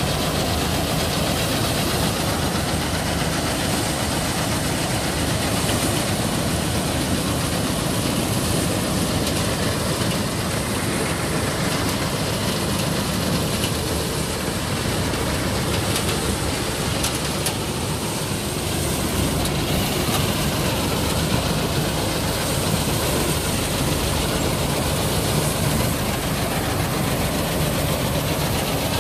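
Tractor engine and a tractor-mounted paddy harvester running together while cutting and threshing rice: a loud, continuous, even mechanical noise with no let-up.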